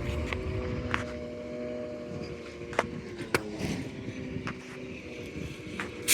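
Recycling truck running at a distance, a steady hum of several pitches, with a few sharp clicks and knocks scattered through it.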